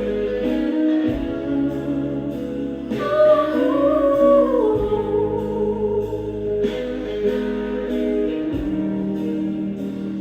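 Music: a slow gospel-style song with guitar and sustained chords, and a wordless vocal line rising and falling about three to five seconds in.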